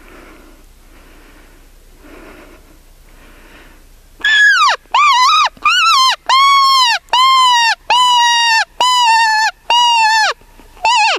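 Coyote-style howling yips: about nine loud, pitched calls in quick succession starting about four seconds in, the first sweeping upward and the rest held level before dropping off at the end of each.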